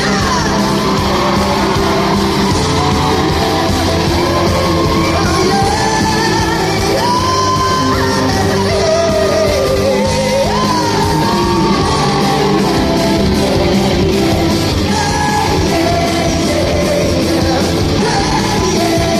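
A rock band playing live with singing and yelling over it, ringing in a large concert hall.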